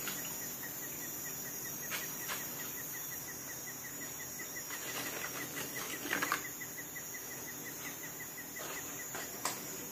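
Hot oil sizzling faintly in a wok as fried breadfruit chips are lifted out with a wire-mesh skimmer, with a few light clinks of the skimmer against the pan, the loudest about six seconds in. A faint, regular chirping, about four a second, runs underneath.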